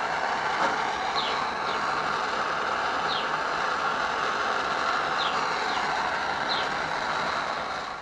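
Hand-held propane torch burning with a steady rushing hiss, with short bird chirps above it every second or so.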